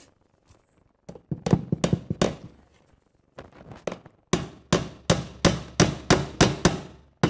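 Hammer driving a wire staple: a few taps about a second in, then after a short pause a steady run of about nine blows, roughly three a second.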